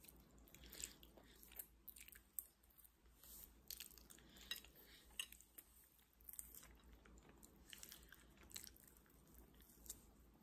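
Faint chewing by a person eating, with soft, irregular mouth clicks and smacks about once or twice a second.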